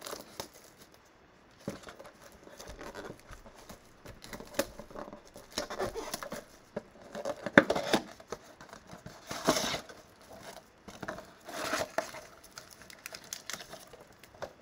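A 2020 Bowman Mega Box of baseball cards being opened by hand: irregular crinkling, rustling and tearing of the box and its wrapped packs, with a few sharper, louder crinkles in the second half.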